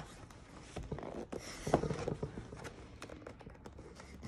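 Cardboard box being handled: scattered light taps, knocks and rubbing as a tight-fitting inner box is worked against its outer sleeve, with a sharper knock a little under two seconds in.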